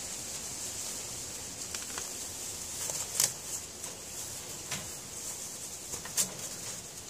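Doe rabbit rummaging in shredded paper nesting material at her nest box, a soft rustling with sharper crinkles about three and six seconds in; she is gathering material for her nest. A steady high hiss runs underneath.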